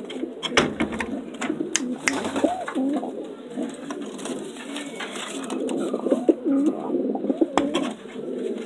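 Several homing pigeons cooing at once in overlapping, looping low calls, with scattered sharp clicks and taps among them.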